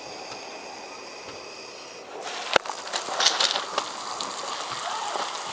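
Tap water hissing steadily as it fills a water balloon on a faucet attachment. About two and a half seconds in, a sharp pop as the balloon bursts, then water spraying and splashing.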